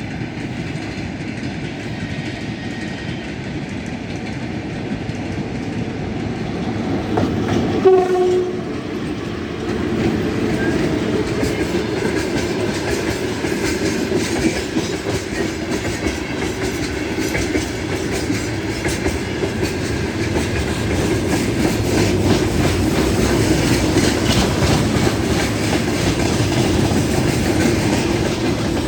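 VL11 electric locomotive and its freight train rumbling past, with a short horn blast about eight seconds in. The wagons' wheel clatter builds and grows louder in the second half as the train goes by.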